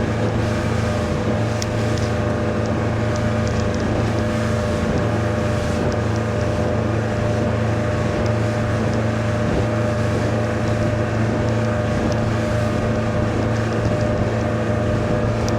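A MerCruiser 120 hp sterndrive's four-cylinder engine running steadily with the boat under way, its even drone heard over the rush of wind and water.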